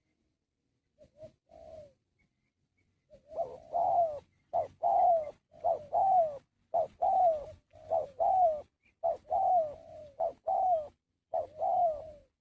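Spotted dove (tekukur) cooing: a few faint notes, then from about three seconds in a steady loud run of short coos, each dropping in pitch.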